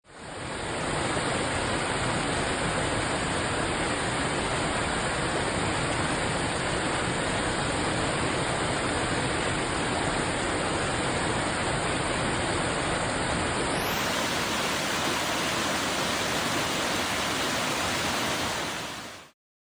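Rushing river water: a loud, steady, even roar of flowing water with no pauses or changes.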